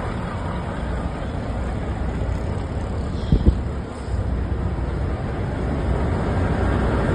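Steady low rumble of a running vehicle, with two short knocks about three and a half seconds in.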